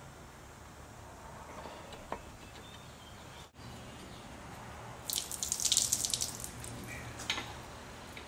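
Faint shop hum with a light click as the camshaft is eased out of a Chevy 350 block. Then, after a cut, a spell of crackly, rattling, hissy noise for a second or two as the bare cast-iron block is rolled over on its engine stand.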